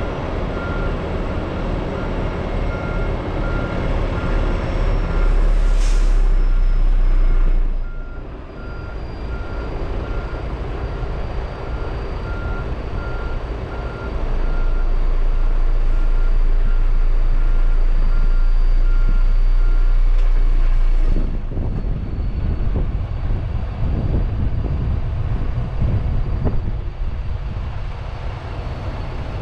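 Semi-truck diesel engine running while backing up, a backup alarm beeping at an even pace until about twenty seconds in. The engine gets louder twice, and there is a brief hiss near six seconds.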